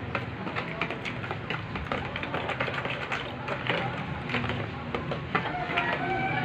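Hand mixing chopped garlic and onion through a liquid marinade in a plastic container: a busy run of quick wet clicks and taps. Faint calls sound in the background about five seconds in.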